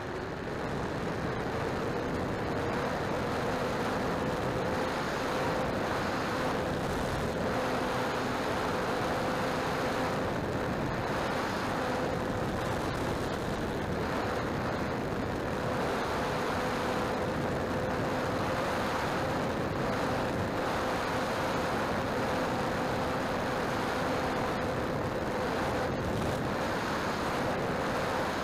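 Dynam Albatros electric RC biplane heard from its own onboard camera: the motor and propeller power up in the first second as the takeoff roll begins, then hold a steady whine under heavy wind rush on the microphone through the flight.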